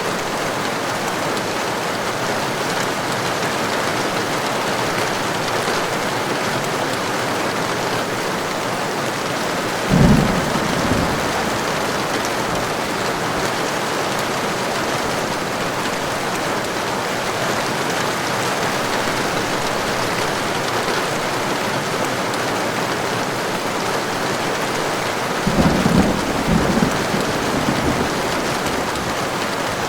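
Heavy rain falling steadily, with thunder twice: a sudden short rumble about a third of the way in, and a longer rolling rumble with several swells near the end.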